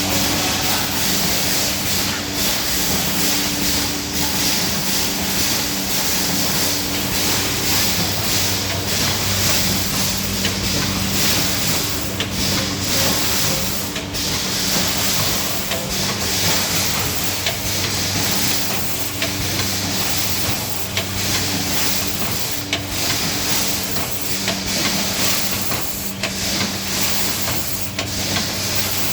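Rotary standing-pouch packing machine for cooking oil running: a steady hiss with a hum that comes and goes and irregular clicks and knocks from its mechanism.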